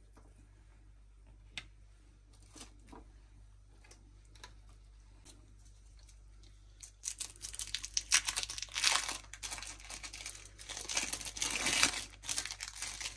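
Clear plastic film crinkling and tearing as a processed cheese slice is peeled out of its wrapper, starting about halfway through in a run of crackly bursts. Before that there are only a few faint light taps.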